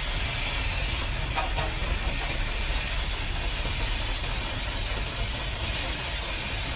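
Steady hissing noise with a constant low rumble beneath it.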